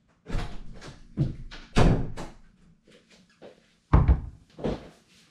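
A run of thumps and knocks as someone moves about and settles at a desk, the loudest about two seconds in; about four seconds in, a ceramic mug is set down on the desk with a knock.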